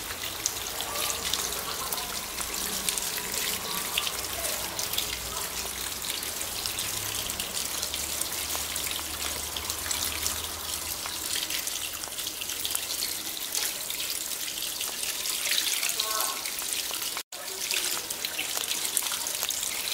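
Tap water running over a hand into a steel bowl of boiled noodles in a sink, a steady splashing as the noodles are rinsed. It cuts out for a moment near the end.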